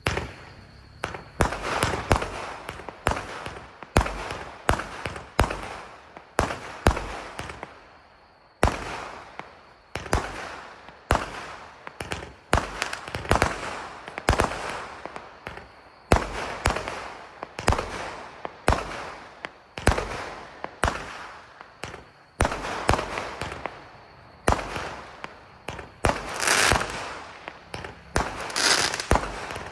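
A 64-shot firework cake with 0.6-inch tubes firing in sequence: sharp launch thumps and aerial bangs, about two or three a second, each followed by crackling, with longer crackling bursts near the end.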